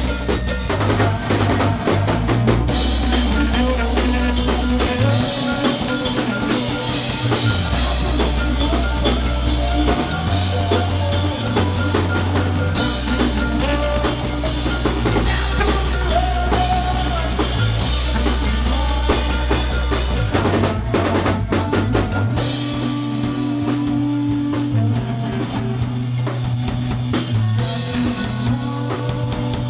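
A live rock band playing: a drum kit and electric guitar over deep, shifting bass notes, with a keyboard. The low end drops out briefly about two-thirds of the way through, then the full band comes back in.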